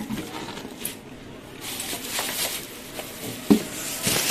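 Cardboard box rustling and scraping as it is handled and closed, with one sharp knock about three and a half seconds in.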